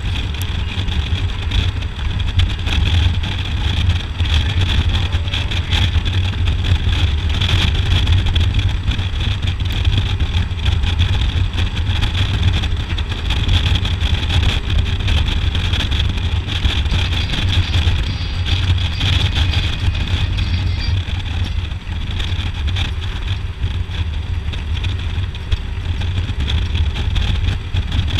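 Harley-Davidson Road Glide's V-twin engine running steadily at cruising speed, with wind rushing past the bike-mounted microphone.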